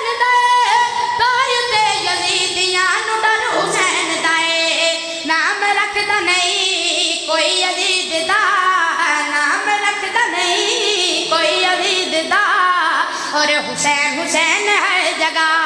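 A solo voice singing a devotional qasida in long, wavering held notes with heavy vibrato.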